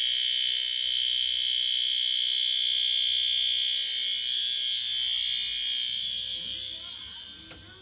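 Fire alarm sounding a steady, high-pitched continuous tone. It fades over the last few seconds and stops with a click near the end.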